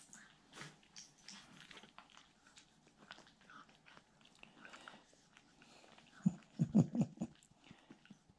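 A small poodle being petted on a lap: faint rustling and mouth noises, then a short run of louder, low sounds from the dog about six seconds in.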